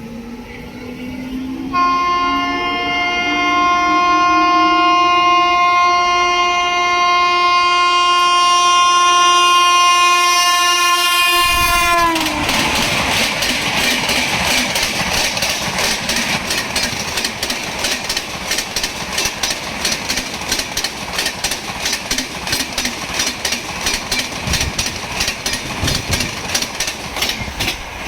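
Indian Railways WAP7 electric locomotive sounding one long horn blast as it approaches at speed, the pitch dropping sharply as it passes about twelve seconds in. The coaches then rush past with a rapid, steady clatter of wheels over rail joints.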